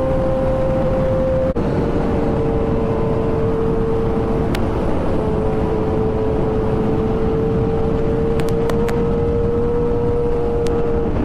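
Kawasaki ZX-10R's inline-four engine held at high revs near top speed: a steady, high engine note over heavy wind rush. About a second and a half in, the note breaks for an instant and settles slightly lower.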